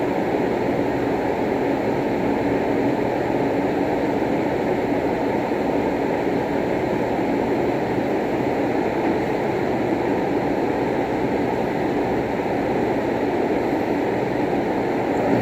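Steady, unchanging low rushing background noise, with no distinct ball clicks standing out from it.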